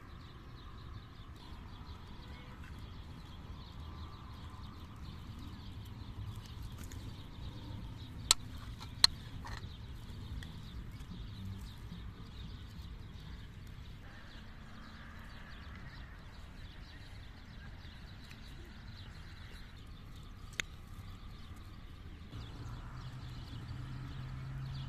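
Quiet outdoor background with a low rumble, broken by two sharp clicks about a second apart near the middle and a third later: a metal spoon knocking against dishes while eating. A low steady hum comes in near the end.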